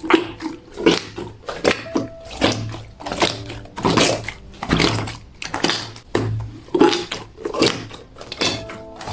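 Clear, very smooth 'fake water' slime being squeezed and pressed by hand. It makes wet squishing and popping sounds about once a second.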